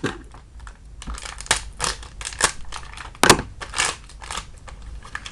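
A blind-bag packet being torn open and handled: a quick run of irregular crinkling crackles, sharpest a little past three seconds in.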